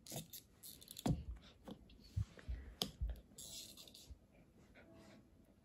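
Faint, scattered light clicks and soft thumps of a small dog playing with a toy on the floor, with a brief rustle about three and a half seconds in.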